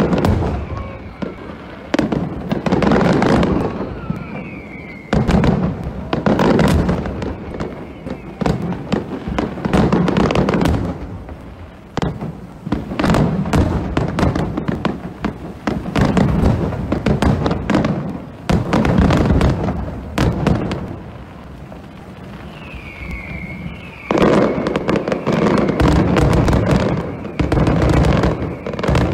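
Aerial fireworks display: shells bursting and crackling in loud waves every couple of seconds, building into a denser continuous barrage near the end.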